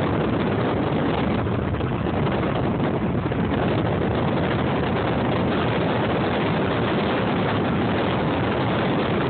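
Steady wind and road noise heard from inside a moving car, an even rush with no changes.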